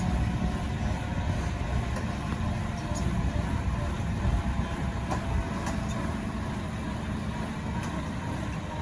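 Bell 205 helicopter running steadily: the rotor beat and the turbine engine.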